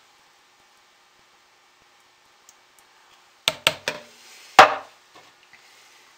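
Handling knocks from a plastic pouring pitcher after pouring soap batter. Three quick light knocks come about three and a half seconds in, then one louder knock with a short ring about a second later, as the emptied pitcher is moved away from the stainless steel pot and set down. The pour itself makes no sound.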